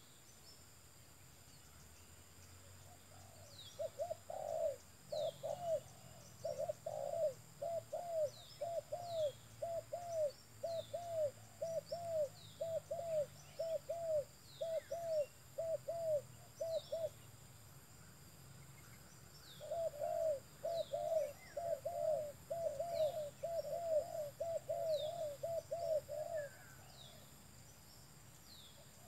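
Spotted dove cooing: a long run of quick, even coos, about two a second, for some thirteen seconds. After a short pause comes a second, faster run. Faint short high notes repeat about every second and a half underneath.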